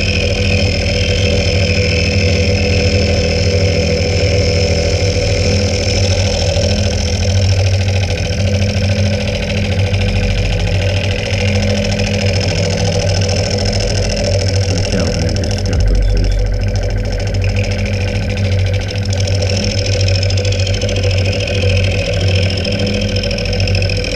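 Milling machine face mill with indexable inserts cutting across a metal workpiece at about 700 rpm: a loud, steady cutting noise over the hum of the spindle, starting just as the cutter bites in. The cut is very noisy, which the machinist thinks may come from some of the insert teeth being blunt and wanting replacing.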